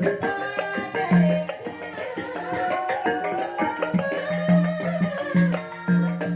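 Banyumasan gending music in ebeg style: struck pitched percussion and a wavering melodic line over a recurring low drum beat, the drum strokes coming about twice a second in the second half.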